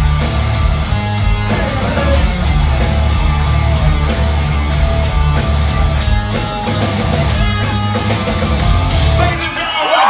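A live hard rock band plays at full volume, with distorted electric guitars, bass and drums, heard from within the audience. The music drops away just before the end.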